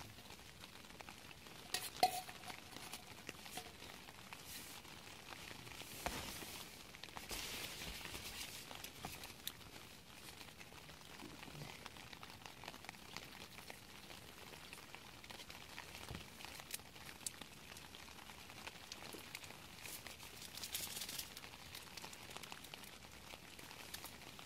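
Metal camping pot and spoon clinking as food is stirred and handled, with scattered small knocks and rustling. The sharpest clink comes about two seconds in.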